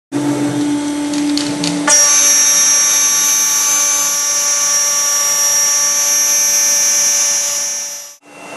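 REU1212 CNC router's spindle running and milling with a steady whine. About two seconds in it gets louder with a higher-pitched whine, and near the end it cuts off abruptly.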